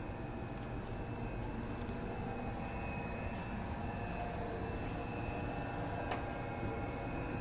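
Steady running noise of an intercity passenger train, heard from inside a first-class compartment coach, with a single light click about six seconds in.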